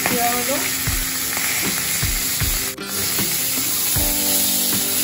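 Onion and panch phoron sizzling as they fry in hot oil in a pan, a steady hiss that goes on without a break.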